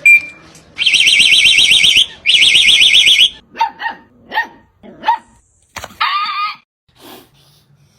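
A warbling electronic alarm sounds in two long bursts, then a dog barks four short times and gives one longer bark.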